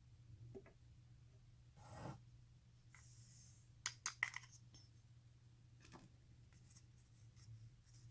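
Faint, sparse handling sounds of a hand shotgun-shell reloading kit: a few light clicks and taps, and a brief soft hiss a little after three seconds in as pre-measured powder is poured through a funnel into the 12-gauge hull.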